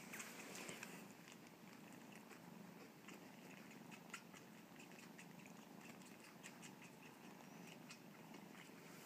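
Faint kitten purring, with small scattered clicks and smacks from a kitten suckling on its littermate's belly.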